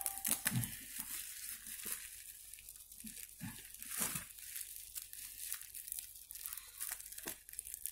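Bubble wrap crinkling and rustling as hands handle and pull it open around a phone LCD screen, with scattered crackles; the loudest crackle comes about four seconds in.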